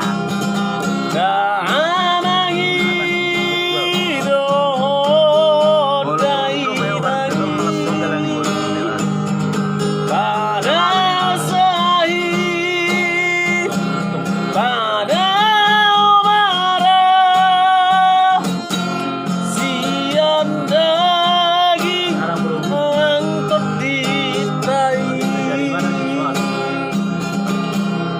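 Music: a guitar-accompanied song passage with a held, sliding melody line over a steady backing.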